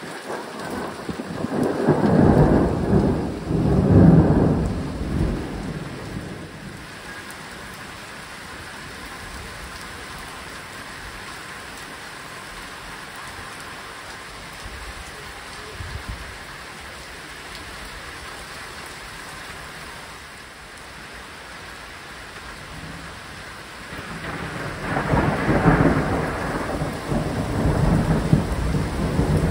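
Heavy rain falling steadily in a thunderstorm. A long roll of thunder comes in the first few seconds, and another starts near the end.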